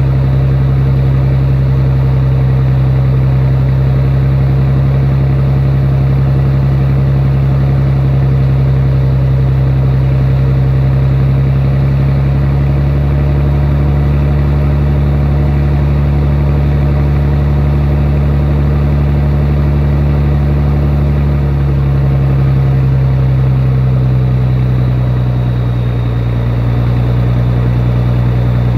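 Scania 111 truck's straight-six diesel idling steadily on its first run of the day, the idle settling a little lower about twenty-two seconds in.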